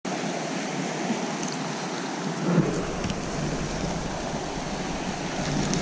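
Creek water rushing steadily over a shallow rocky riffle, with a few faint clicks.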